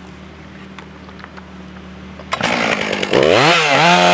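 Stihl MS 661 C two-stroke chainsaw running at idle, then throttled up about two seconds in: the engine climbs quickly to full speed and its note dips and recovers as the bar cuts into a stump. This is a test cut with the freshly file-sharpened full-chisel chain.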